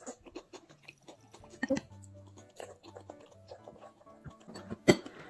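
Background music with a child chewing and crunching food close to the microphone, and one sharp click near the end.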